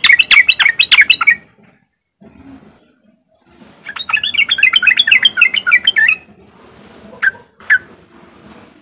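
Yellow-vented bulbul (trucukan) giving its rapid chattering 'riwik' call. A quick burst of notes comes at the start, a longer burst of about two and a half seconds a few seconds in, then two single notes near the end.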